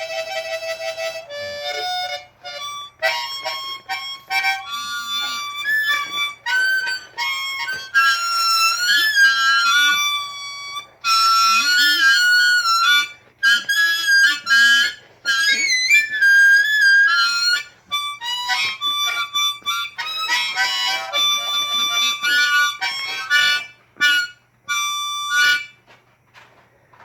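Hohner Marine Band diatonic harmonica in D played solo in first (straight) position, in a pre-war blues style: held notes that waver and bend, then short repeated notes, the playing stopping near the end.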